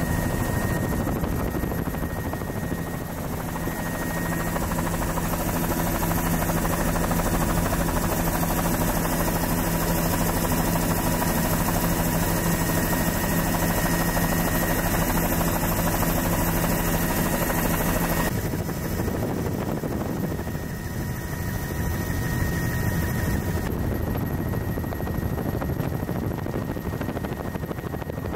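Helicopter in flight heard from the open, doors-off cabin: steady rotor and engine tones under a strong rush of wind. About two-thirds of the way through, the steady tones drop away abruptly and mostly the wind rush remains.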